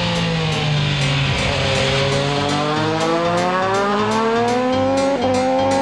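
Foggy Petronas FP1 race motorcycle's three-cylinder engine passing on track. Its note falls as the bike slows into a corner, then climbs steadily as it accelerates out, with a quick upshift about five seconds in.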